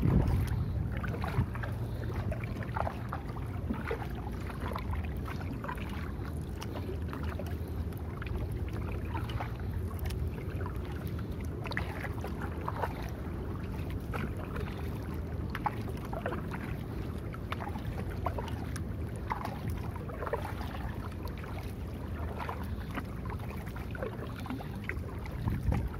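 Kayak being paddled: the double-bladed paddle's blades dip in and out of the water, making scattered irregular splashes and drips over a steady low rumble.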